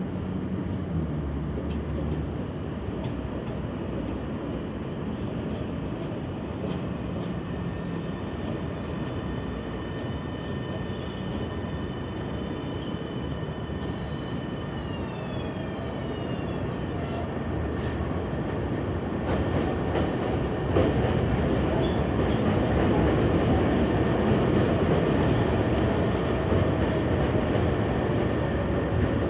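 New York City subway train running through the station. Its electric motors whine and fall in pitch about halfway through, then the train noise gets louder and rougher, with rapid clicking of wheels over the rail.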